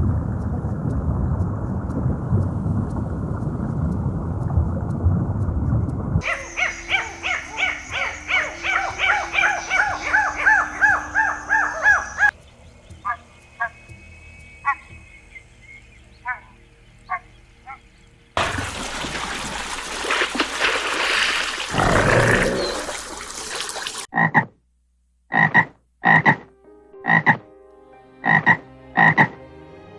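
A run of different animal-call recordings, each lasting a few seconds: first a dense low chorus, then a pitched call repeated about twice a second, then sparse short calls, a noisy stretch, and finally sharp single calls about half a second apart.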